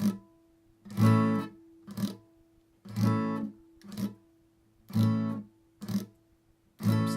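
Acoustic guitar playing a reggae offbeat strum on an A barre chord. A short muted strum alternates with a chord squeezed down to ring briefly, about one hit a second, four of each.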